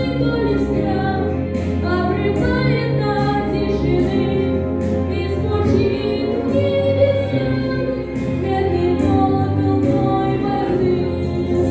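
Music: a sung Russian song, a voice carrying the melody over sustained instrumental accompaniment with a steady bass.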